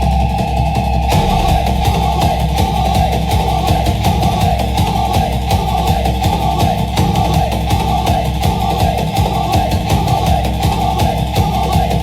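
Tribal-style drumming music: fast, dense drum strikes over a steady low drone, the drumming thickening about a second in.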